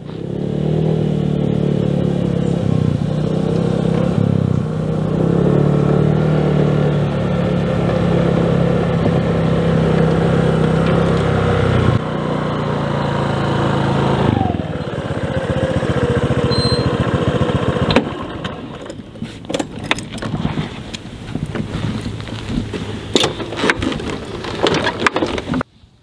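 Motor scooter engine running steadily under way, then falling in pitch about fourteen seconds in as it slows. In the later seconds, irregular clicks and knocks take over.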